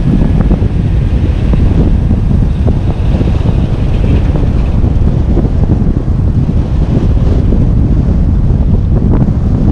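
Off-road truck driving over a loose lava-rock trail: a loud, steady rumble with many small knocks and rattles, and wind buffeting the microphone.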